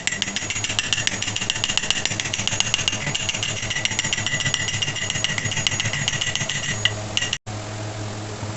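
Rapid light hammer taps driving a new sealed ball bearing into its seat in a ceiling fan's housing. The taps come several a second with a ringing metallic tone and stop shortly before seven seconds in. After a sudden break near the end, a steady low hum is heard.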